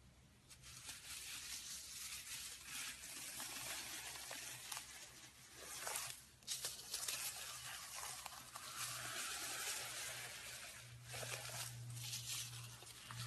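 Slime being stretched and squeezed by hand: a dense crackle of small sticky pops and tearing sounds, with short pauses about six seconds in and again near eleven seconds.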